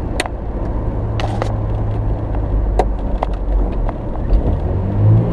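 Truck engine running with a steady low hum, with scattered light clicks and knocks over it; the engine note grows fuller and louder near the end.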